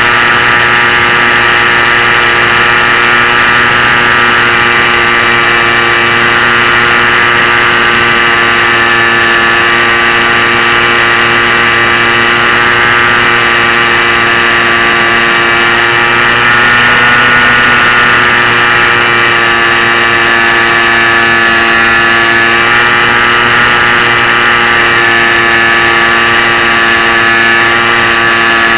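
Electric motor and propeller of a HobbyZone Champ RC plane running steadily in flight, heard loud and close from a camera mounted on the plane. Its pitch wavers slightly and it gets a little louder about halfway through.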